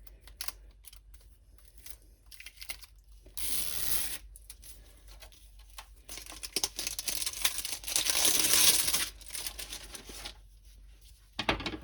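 Packaging on a rolled diamond painting canvas being torn and peeled open, with crinkling: a short rip about three seconds in, then a longer, louder one of about three seconds.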